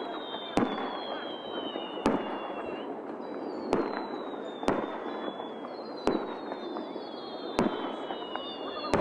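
Fireworks going off at close range: sharp bangs about every second or so, about six of them, with thin falling whistles and crackling between the bangs.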